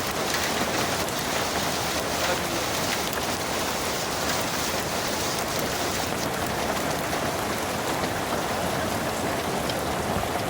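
Rain falling steadily, a dense patter of drops striking a surface.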